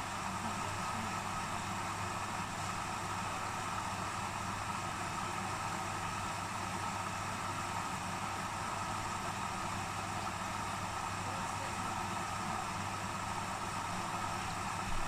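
Hoover Dynamic Next integrated washing machine running steadily through its service-mode test cycle, giving an even mechanical hum with a constant low drone.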